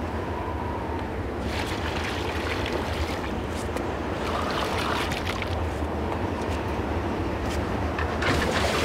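Strong wind blowing steadily, with water poured from a bucket splashing into metal pails in a few bursts.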